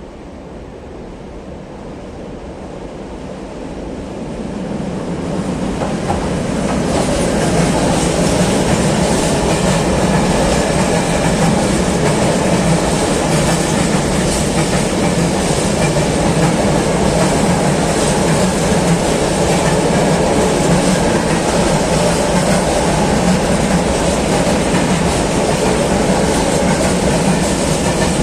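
Freight train of coal wagons passing through the station, hauled by electric locomotive 383 212. It grows louder over the first several seconds, then holds a steady loud rumble with the clatter of wheels on the rail joints.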